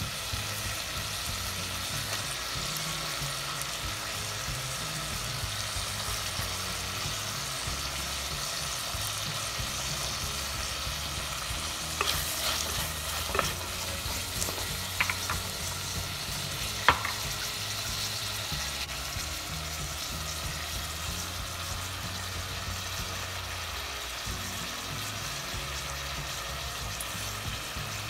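Onions, green chillies and tomato frying in a clay pot, sizzling steadily as they are stirred with a wooden spatula. There are a few sharp knocks around the middle.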